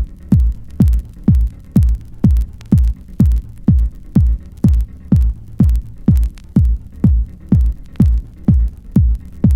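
Electronic dance music intro: a steady four-on-the-floor kick-drum beat, about two beats a second, with light hi-hat ticks between the beats.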